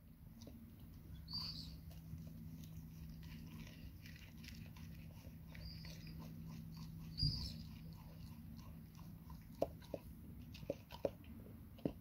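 Labrador retriever chewing and biting into a large grilled sandwich, a run of irregular wet smacks and small crunches, with a few sharper snapping bites near the end. A single thump about seven seconds in is the loudest sound.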